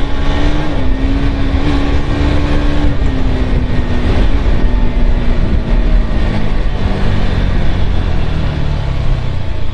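A Bajaj Pulsar NS200 single-cylinder motorcycle engine running while riding, its note falling slowly as the revs ease off, over a heavy low rumble.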